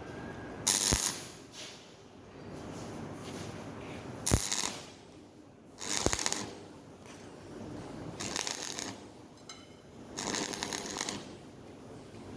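Stick arc welder laying short tack welds: five separate bursts of crackling, each under a second and opening with a sharp snap as the arc strikes.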